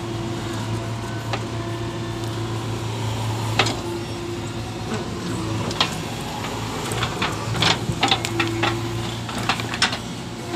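Diesel engine of a JCB 3DX backhoe loader running steadily under load while it digs and loads soil. Scattered sharp knocks and clanks from the bucket and clods of earth become more frequent in the second half.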